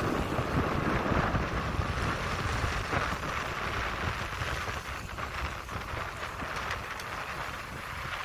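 Wind buffeting the microphone: an uneven, gusting low rumble over a steady rushing hiss.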